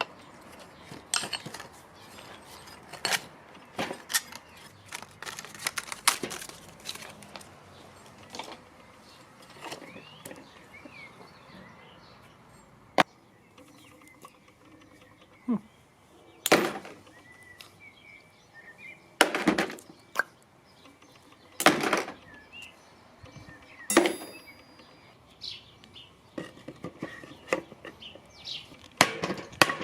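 Irregular sharp clicks and knocks, a dozen or so strong ones spread through, with faint chirps in the background.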